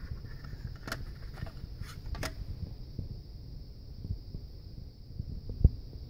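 Handling noise as a Zippo lighter is taken out of its black plastic display case: a low rumble of hand movement, a few light clicks about one and two seconds in, and a dull knock near the end.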